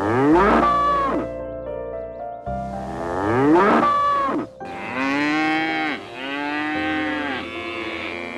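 An animal calling four times in long, drawn-out cries, the first two sweeping up in pitch, over soft background music.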